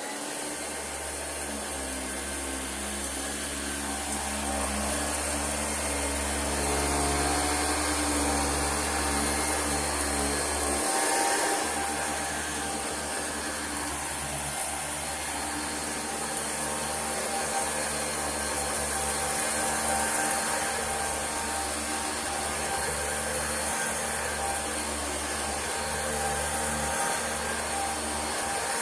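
Singer System 90 vacuum cleaner running on high speed, steady with level tones and a hiss of airflow, as it is worked over rugs; its loudness swells and dips slightly, and its low hum changes about eleven seconds in.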